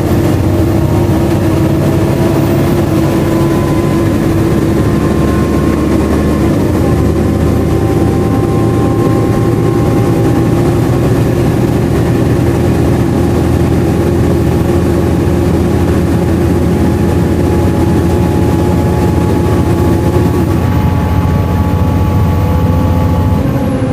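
Volvo B7LA articulated bus running, heard on board: loud engine and cooling-fan noise, with a high steady whine that glides down in pitch about six and a half seconds in.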